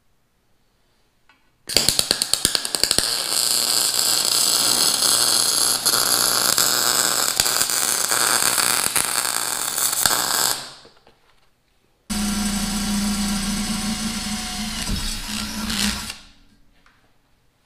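MIG welder arc crackling steadily for about nine seconds as the steel downpipe is welded fully, cutting off abruptly. After a short pause a cordless drill runs with a steady hum for about four seconds, drilling the hole in the pipe for the wideband oxygen sensor bung.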